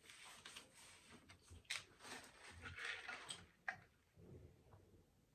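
Faint close-miked sipping through a straw from a plastic tumbler, a soft hiss, with a few sharp clicks of mouth and cup handling.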